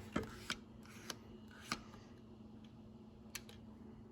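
Several faint, sharp clicks at uneven spacing, over a low steady hum.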